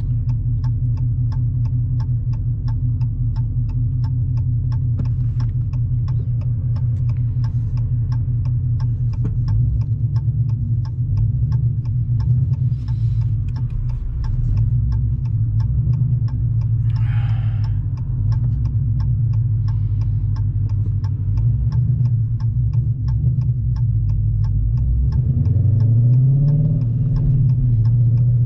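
The Challenger Scat Pack's 6.4-litre Hemi V8 runs at low speed with a steady low drone. Over it comes an even ticking of about three clicks a second. Near the end the engine note rises briefly.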